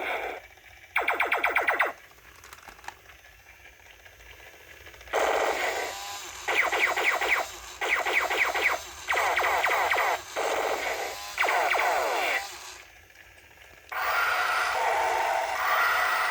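Remote-controlled toy robot's built-in speaker playing electronic sound effects: several short bursts of rapidly repeating falling-pitch zaps with pauses between them. About two seconds before the end a steady whirring starts.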